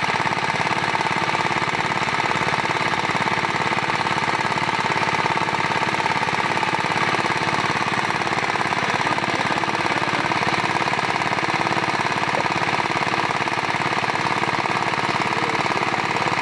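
Small engine running steadily with a rapid, even knocking beat.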